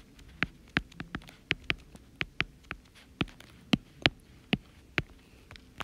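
A stylus tapping and clicking on a tablet's glass screen during handwriting: a quick, irregular string of sharp ticks, about two or three a second.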